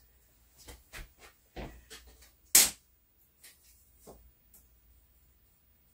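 A string of short scratching and scuffing sounds on a plywood floor. One sharp scrape, about two and a half seconds in, is much louder than the rest.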